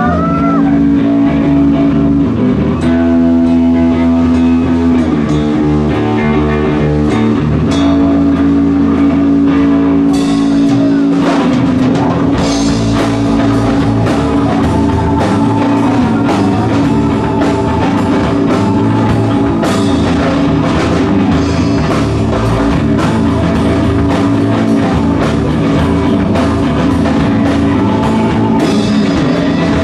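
Live rock band playing loudly: distorted electric guitar from a Les Paul-style guitar over a drum kit. The drums and cymbals build up about ten seconds in.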